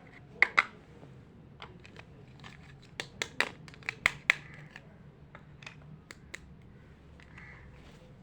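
Small hard plastic toy pieces clicking and tapping as they are handled, in a few sharp clicks about half a second in and a cluster around three to four seconds, with scattered lighter ticks after.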